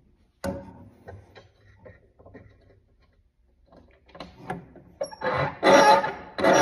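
A sharp click, a few light taps, then a louder run of knocks and metallic scraping near the end: workshop tools being handled while the table saw blade height is set.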